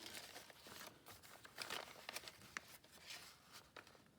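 Faint rustling and light ticks of paper sheets being handled and laid together.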